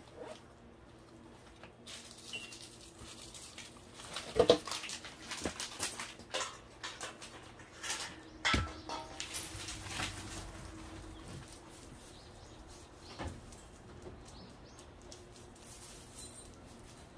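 Scattered short knocks and rustles, the loudest about four and a half and eight and a half seconds in, with brief dog sounds among them.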